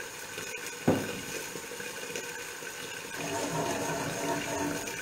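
Pans cooking on a gas hob with a steady simmering hiss, a sharp knock about a second in, and a louder, busier stretch from about three seconds in as a saucepan is handled.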